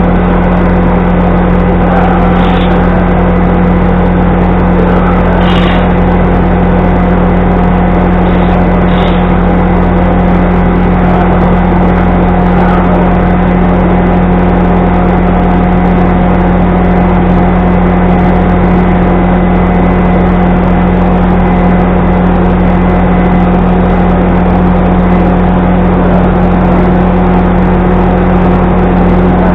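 Steady, loud mechanical drone with a constant low hum that never changes, and a few faint knocks in the first ten seconds.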